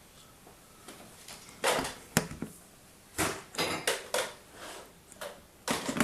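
A handheld Molex crimping tool being handled and squeezed onto a crimp socket and wire: a few short bursts of rattling and scraping, with one sharp click about two seconds in.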